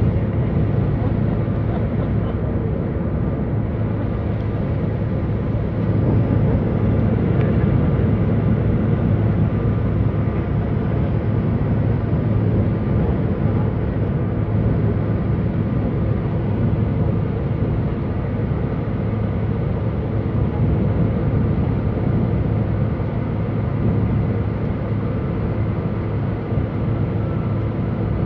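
Cabin noise of a CRJ1000 regional jet climbing after takeoff: a steady drone of its rear-mounted turbofan engines and rushing air, with a steady low hum running under it.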